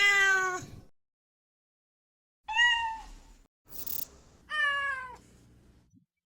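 AI-generated cat meows from ElevenLabs' sound-effects generator, played one sample after another: three separate meows, the first and second falling in pitch, with a short noisy burst before the third and dead silence between clips.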